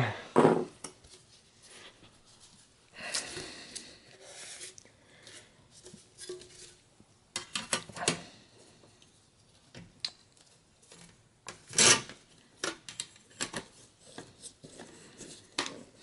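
Dell Latitude 6430u bottom cover being fitted and pressed back onto the laptop base by gloved hands: scattered clicks and light scraping, with a run of sharp clicks about halfway through and the loudest snap about three quarters of the way in.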